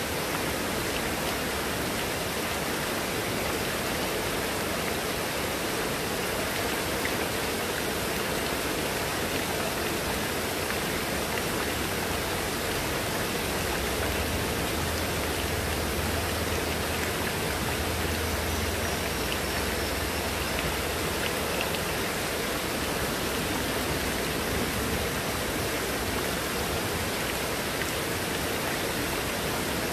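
Heavy rain pouring steadily onto foliage and wet paving, with water streaming off a roof edge. A low rumble swells through the middle and fades again.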